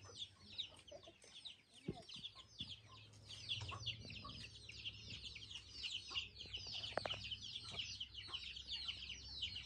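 A flock of chicks peeping: a dense, unbroken stream of short, high, falling peeps, with a couple of faint clicks.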